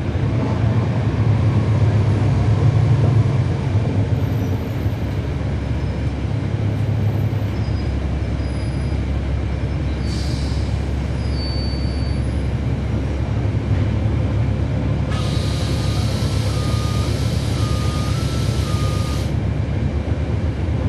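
Cabin sound aboard a NABI 40-foot transit bus with its Cummins ISL9 diesel engine running, swelling for the first few seconds and then steady. A short hiss comes about ten seconds in, and about fifteen seconds in a longer hiss lasting about four seconds, with a beeping tone alternating between two pitches.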